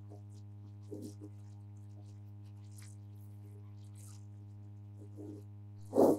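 Steady electrical mains hum from an amplified stage sound system, with a few faint knocks and rustles. A short loud burst comes near the end.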